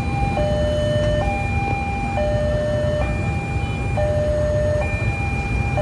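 Railway level-crossing warning alarm sounding, an electronic two-tone signal switching between a higher and a lower tone about once a second. It is still sounding after two trains have passed, the sign that another train is approaching. A steady low rumble runs underneath.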